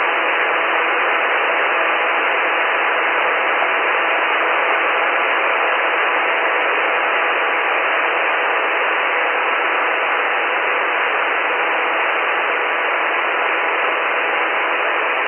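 Steady cockpit noise of a SportCruiser light-sport aircraft in a climb (engine, propeller and airflow) picked up through the headset intercom microphone, sounding as a thin, even hiss with a faint hum.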